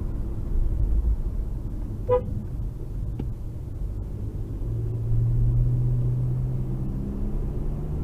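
Steady low road and engine rumble of a moving car, with one short car-horn toot about two seconds in. A low engine hum comes up at about five seconds and rises slightly in pitch.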